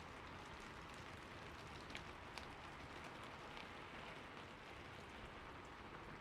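Steady rain falling, an even hiss with separate drops ticking now and then, a few of them sharper, about two and two and a half seconds in.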